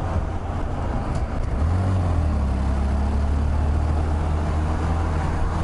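Honda MSX125 (Grom) single-cylinder four-stroke engine running while riding in traffic, with wind and road noise; about a second and a half in the engine note becomes louder and holds steady as the bike pulls away.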